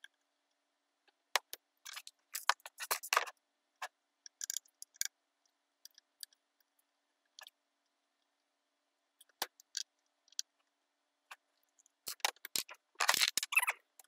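Magnetron ignition pickups on an AeroVee engine being taken off, reversed and refitted: sparse sharp clicks and short scrapes of small parts and hand tools. They come in small clusters about two to three seconds in and again, loudest and densest, near the end.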